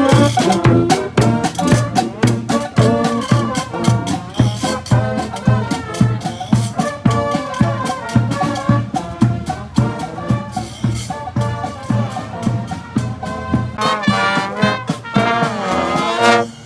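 Street brass band playing a second-line parade tune: trumpets and trombones over a steady drum beat, the tune stopping right at the end.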